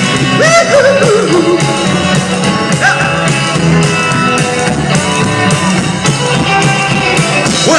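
Rock-and-roll music with guitar, a steady beat and a singing voice.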